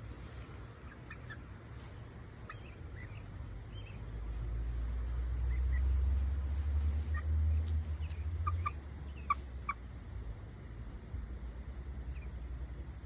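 Chickens giving short, high chirping calls here and there, several in quick pairs about eight to ten seconds in, over a low rumble that swells from about four seconds in and drops away near nine seconds.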